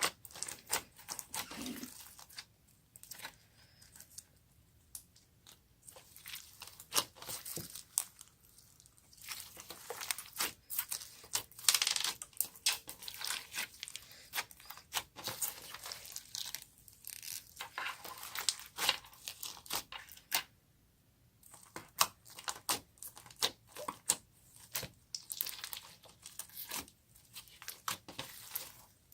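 Slime being squished, stretched and folded by hand, with irregular sticky crackles and popping clicks in uneven bursts and a short pause about two-thirds of the way through.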